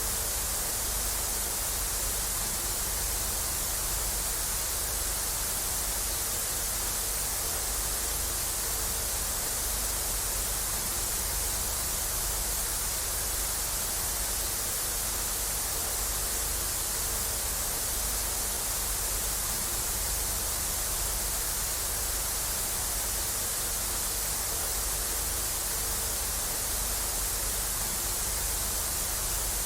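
Television static: a steady, even hiss, strongest in the high treble, with a low rumble underneath.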